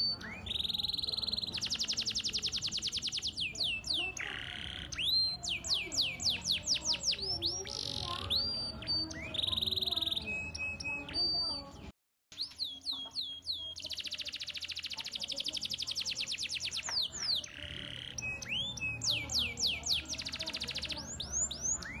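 Domestic canary singing a long, continuous song of high-pitched rapid rolling trills and quick rising and falling whistled notes, with a brief cut-out about halfway through.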